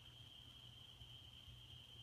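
Near silence: room tone with a faint, steady high-pitched whine and a low hum.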